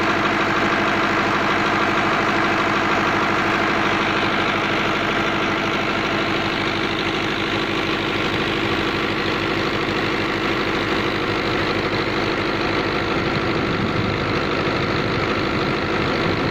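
Fiat tractor's diesel engine running steadily under a constant load, driving a tube well pump.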